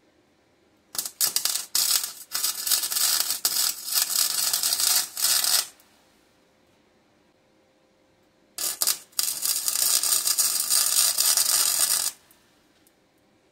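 Electric arc welder crackling in two runs of about five and three and a half seconds, each starting with a few short stutters as the arc strikes, welding a broken piece back onto an ATV's steel frame.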